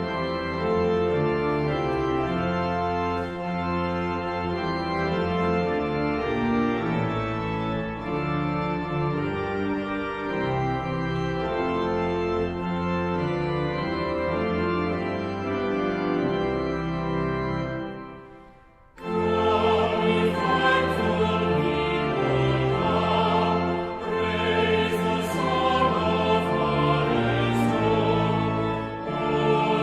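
Church organ playing a hymn introduction in sustained chords. It breaks off briefly about 18 seconds in, then the congregation starts singing the hymn with the organ.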